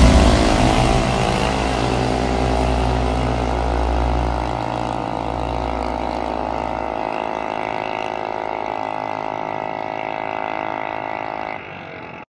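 Junior dragster's single-cylinder engine at full throttle as the car launches and runs away down the drag strip. Its pitch climbs briefly, then holds steady while it fades with distance, and it drops away sharply near the end.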